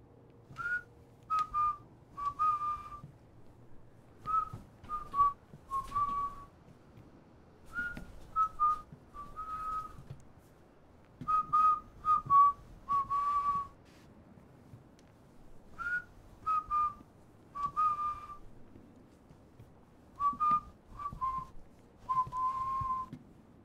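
A person whistling a short tune, six phrases of a few notes each with pauses between them, every phrase ending on a longer, lower note.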